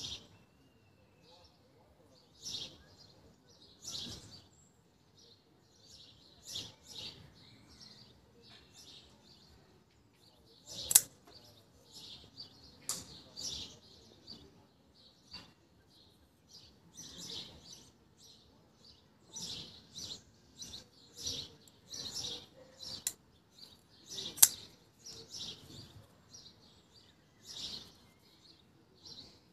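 Civivi Spiny Dogfish folding knife flicked open and closed over and over: sharp metallic clicks and snaps as the 14C28N blade swings out, locks and is released and folded back, coming singly and in quick clusters, with a few much louder snaps among them.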